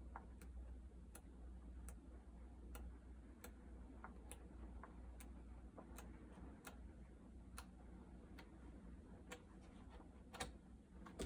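Pages of a hardback book flicked off the thumb one at a time, each page giving a small sharp tick, about one tick every three quarters of a second, over a low steady hum.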